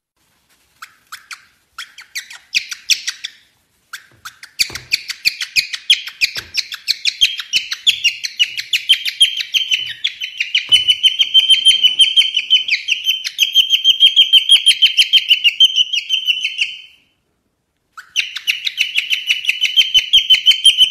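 Cockatiel giving long runs of quick, rhythmic squeaky chirps, sparse at first and then steady, stopping for about a second near the end before starting again.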